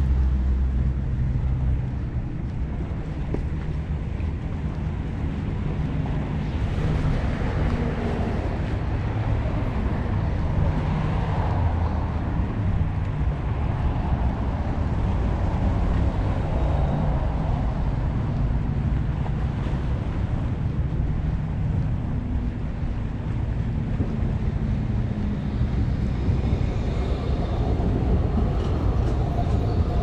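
Wind buffeting the microphone over a steady hum of road traffic, with the sea washing against the seawall.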